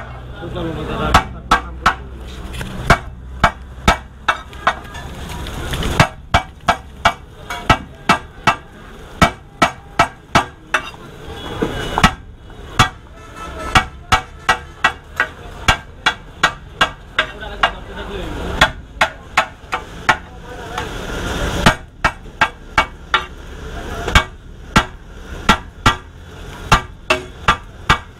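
Cleaver chopping fried chicken on a flat steel griddle: sharp metallic chops in quick runs of about three or four a second, broken by short pauses.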